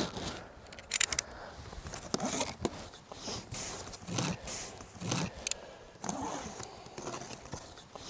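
A large cardboard shipping box being opened: packing tape slit along the seam and cardboard flaps scraping and rustling, in a series of short rasping strokes.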